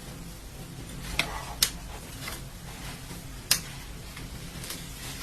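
Eating utensils clicking against tableware: about five short, sharp clicks, two of them loud, over a steady low room hum.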